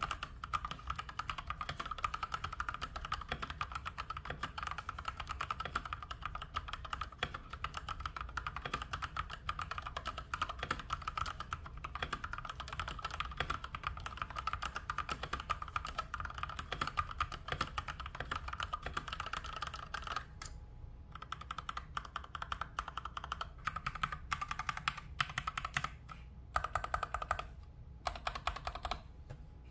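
Fast typing on a SteelSeries gaming keyboard: a dense, continuous stream of key clicks, with a few short pauses in the last third.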